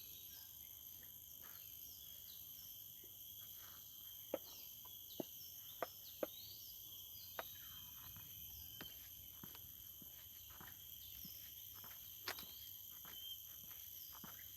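Faint outdoor ambience: a steady high-pitched insect chorus with short falling bird chirps repeating over it. A few sharp clicks come between about four and seven seconds in, and once more near twelve seconds.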